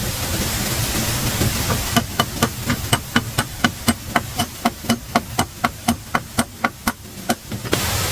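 Rapid strikes of a hand tool on wood, about four a second, each a sharp knock with a short ring, starting about two seconds in over a steady rushing background. Near the end the strikes stop abruptly and only a steady rush remains.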